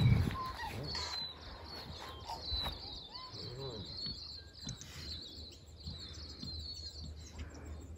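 Small birds chirping: many short, high calls repeating over a quiet outdoor background, with a brief low thumping at the very start.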